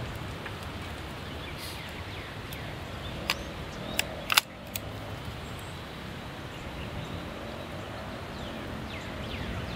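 A few sharp metallic clicks as a single-shot break-action shotgun is loaded and snapped shut, the loudest about four and a half seconds in, over steady outdoor background noise.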